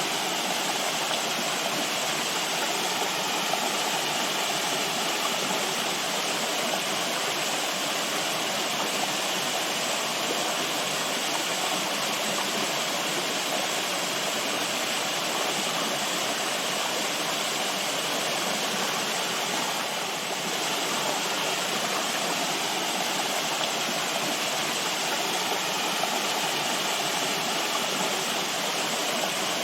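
Steady rushing of running water, an even, unbroken wash of noise with no rhythm or separate splashes, dipping slightly for a moment about twenty seconds in.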